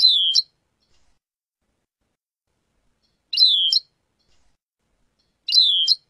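Caged European goldfinch calling: three short, identical calls of about half a second each, the second about three seconds after the first and the third two seconds after that. Each is a downward-sliding whistled note followed by a quick second note.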